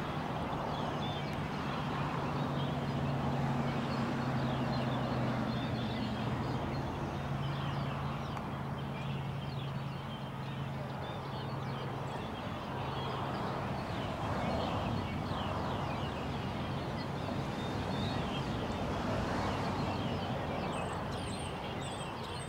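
Outdoor background noise with a steady low mechanical hum, plainest for about the first twelve seconds, and birds chirping throughout.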